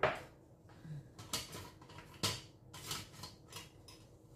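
Cutlery and dishes clattering during a meal: a spoon scraping and clinking against a plate, with several short sharp knocks, the loudest right at the start.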